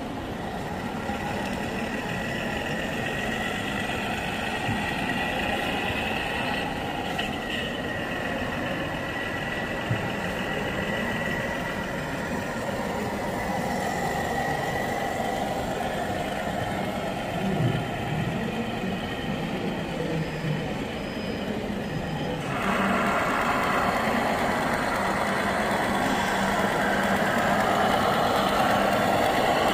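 Engine sound of an RC scale model truck, a steady simulated diesel running at low speed, over the noise of an exhibition hall. It grows louder and brighter about three-quarters of the way through.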